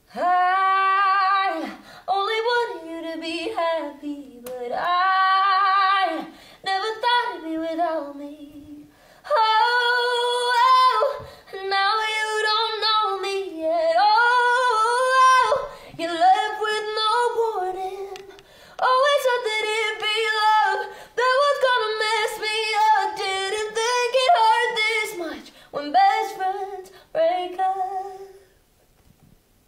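A young woman singing solo and unaccompanied, in phrases broken by short pauses, with vibrato on the held notes.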